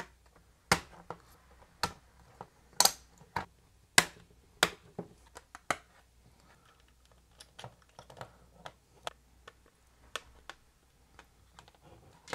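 Irregular sharp clicks and taps of plastic panel-mount parts, round switches and a USB socket, being pushed and snapped into holes in a thin aluminium faceplate. The loud clicks come in the first half, with lighter handling taps afterwards.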